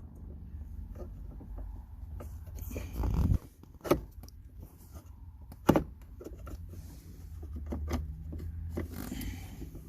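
Clicks and knocks of hands working at a removed manual gear-shifter assembly, prying at a spring-loaded part caught in its notch. Two sharp clicks stand out about four and six seconds in, over a low steady hum.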